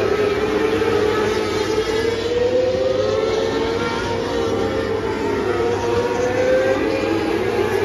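Several small winged dirt-track race cars running laps together: their engines make a steady high drone whose pitch wavers up and down as the cars go around the oval.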